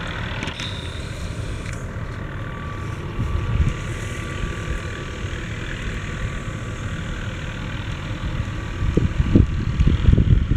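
Distant McDonnell Douglas MD 520N NOTAR helicopter hovering, its turbine and rotor making a steady drone with a faint thin whine. Gusts of wind buffet the microphone over the last two seconds.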